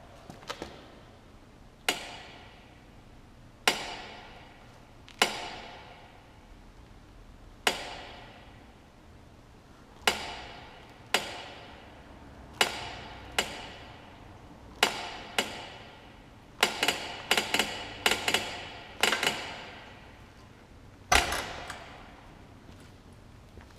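Sharp metallic clanks from the rear of a Kawasaki KLR650 motorcycle, each ringing out for a second or so. They come at irregular intervals, a few seconds apart at first and in quick clusters later on. This is the rear noise the owner is trying to trace.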